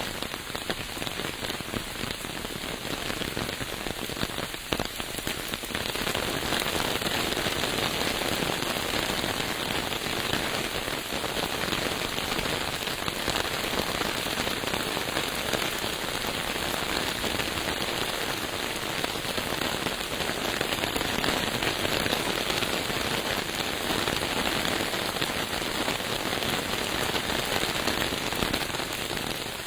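Steady rain falling, a dense patter of drops that grows heavier about six seconds in.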